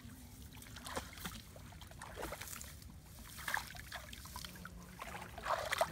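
Shallow muddy water sloshing and splashing in short irregular bursts as legs and hands move through it, the loudest splash about five and a half seconds in.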